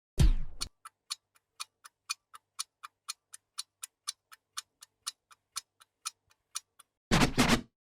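Clock-like ticking, about four sharp ticks a second and evenly spaced, running for about six seconds. It starts just after a short loud burst, and a louder sound effect cuts in near the end.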